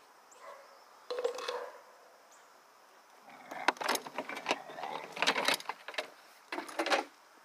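Handling noise at a plastic feed drum: from about three seconds in, a run of clatters, knocks and rustles with sharp metallic clinks as the drum and its lid are worked by hand.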